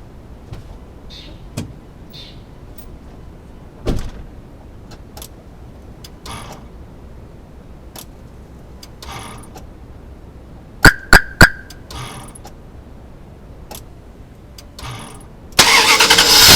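Sharp clicks and short whirring patches as the ignition key of a 2000 Dodge Durango is switched on and off several times, priming the fuel rail because it loses pressure quickly; the owner suspects a weak fuel pump or pressure regulator. Near the end the 5.9-litre V8 is cranked and fires up, suddenly loud.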